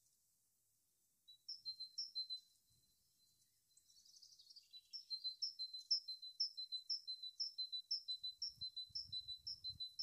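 Red-wattled lapwing calling: a fast run of sharp, high two-note calls, about two to three a second, starting about a second and a half in, with a brief chattering flurry around four seconds. Low dull thumps join near the end.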